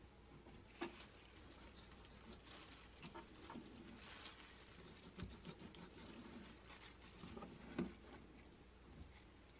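Faint handling sounds of raw chicken thigh being trimmed with a knife on a plastic cutting board by a hand in a plastic glove: scattered soft rustles and light taps, with two sharper knocks, about a second in and near the end.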